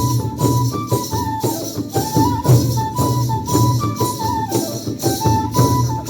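Bodo traditional dance music: a flute plays a stepped melody over a drum and jingling metal percussion that keep a steady beat of about two strokes a second.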